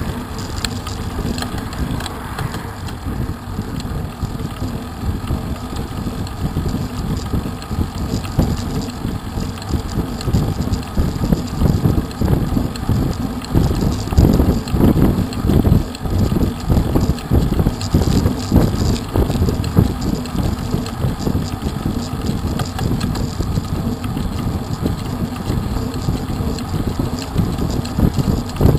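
Wind buffeting the microphone of a bicycle-mounted camera, with the bike's tyres rolling on tarmac underneath. It is an uneven low rumble that grows gustier partway through.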